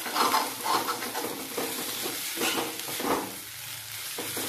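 Metal spoon scraping and stirring mutton pieces in an aluminium kadai, a stroke about every second, over a steady sizzle of frying; the meat has cooked down dry. The strokes pause briefly shortly before the end.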